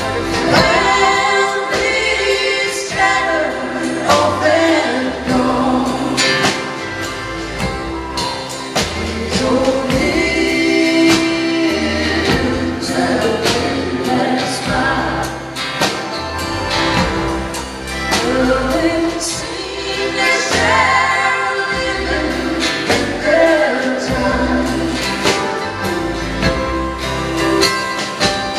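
A live band playing a song with several voices singing together over acoustic guitars, mandolin and a drum kit, with steady drum strokes.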